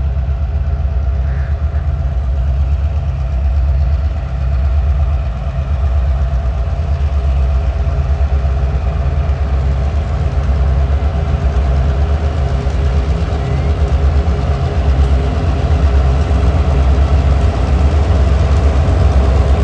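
TasRail 2050-class diesel-electric locomotives 2051 and 2054 running as they haul a loaded coal train: a steady low engine rumble with an even pulsing beat and a faint steady whine above it, growing slightly louder toward the end.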